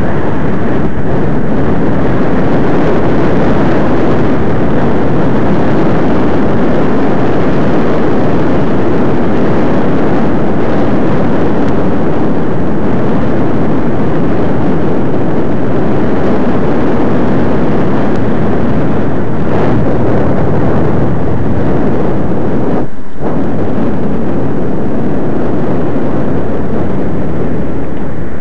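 Wind buffeting the microphone of a camera on a moving bicycle: a loud, steady rushing rumble that drops out briefly about 23 seconds in.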